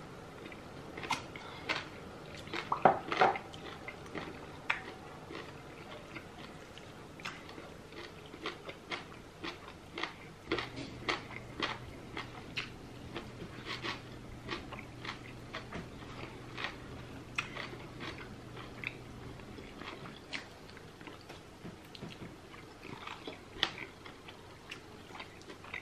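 Wet chewing and lip smacks of people eating spicy goat head (isi ewu) with their hands. A run of short sharp smacks and clicks, with a few louder ones about three seconds in.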